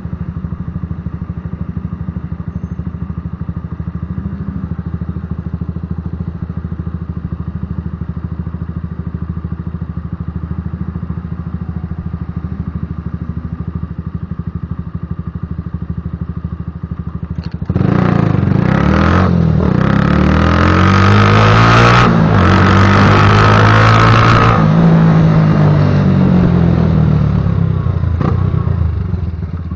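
Patagonia Eagle motorcycle engine running steadily with a rumbling exhaust. About 18 seconds in it suddenly gets much louder, its pitch climbing and dropping as it is revved or accelerated through the gears, then eases back near the end.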